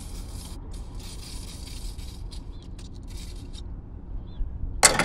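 Aerosol carburetor cleaner spraying in hissing bursts: two longer sprays of about a second each, then several short ones. A sharp thump near the end.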